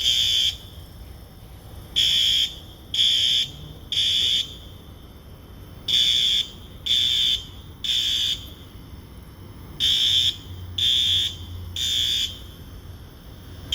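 Building fire alarm sounding the temporal-three evacuation pattern: three loud, high-pitched beeps about a second apart, a pause, then again, over and over. It was set off by smoke from bacon frying.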